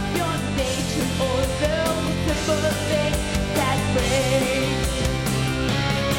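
Pop-rock song: a steady beat and bass under a wavering melodic lead line.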